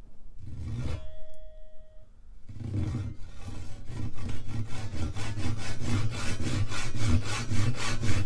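Japanese ryoba pull saw crosscutting the end off a mahogany blank. A short scrape as the cut is started, then quick, even rasping strokes from about two and a half seconds in, growing louder as the cut deepens.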